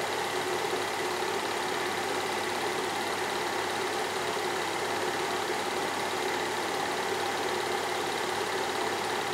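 Steady mechanical running of a cine film projector, its motor and film transport making an even, unchanging whirr with no rise or fall.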